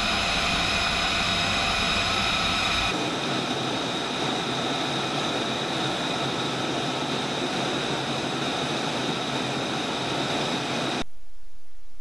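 F-35B's Pratt & Whitney F135 jet engine running at idle during a hot reload: a steady rush with several high whining tones over it. The sound changes to a broader rush about three seconds in and cuts off near the end.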